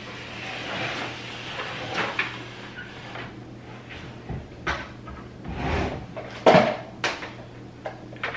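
Handling noise as a Brother LX3817 sewing machine is set down and shifted on a wooden table, with rustles and knocks from its power cord being plugged in and moved. The loudest knock comes about six and a half seconds in; the machine's motor is not running.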